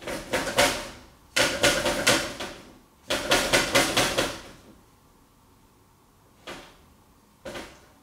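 Bursts of rapid rattling and knocking at a fireplace's metal-framed glass doors: three clusters in the first half, then two single knocks near the end.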